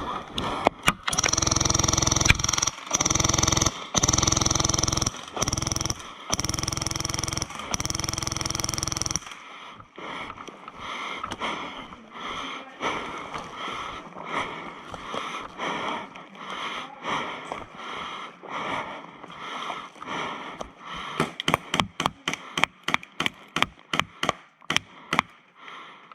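Airsoft gun firing six long full-auto bursts, about a second each, with a steady whirring tone through every burst. After a quieter stretch of scuffling, a rapid run of sharp single cracks comes near the end, about three a second.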